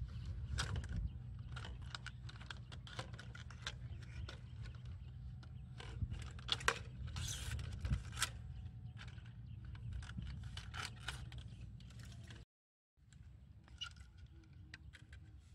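Hands handling a DIY fish trap: irregular scraping, rustling and clicking of plastic netting against PVC pipes and mesh as it is adjusted, over a steady low rumble. The sound drops out briefly about twelve and a half seconds in.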